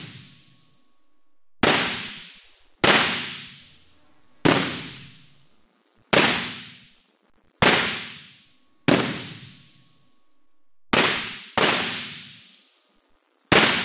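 Simulated lightning: a Marx impulse generator's high-voltage sparks jump between the overhead electrode and a conductive model Boeing 747. The result is a string of nine sharp electric-arc cracks, one to two seconds apart. Each crack rings out for about a second in the large high-bay hall.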